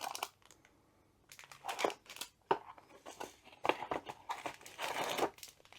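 Packaging of a diamond painting kit crinkling in irregular short rustles as it is opened and its contents are pulled out by hand, starting about a second in.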